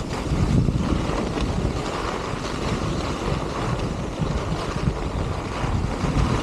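Wind buffeting the microphone of a skier's camera on a downhill run: a steady, deep rushing noise that swells and dips.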